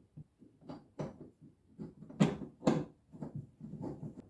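Stainless grab bar and its bolts and nuts being fitted by hand to a bulkhead: irregular small clicks and light knocks of metal hardware, with two louder knocks a little after two seconds and at about two and a half seconds.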